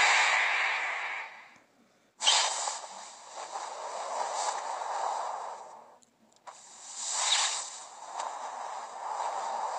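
Breathy hissing and whooshing effects from a TikTok edit's soundtrack. The sound cuts out briefly about two seconds in and again about six seconds in, coming back sharply each time.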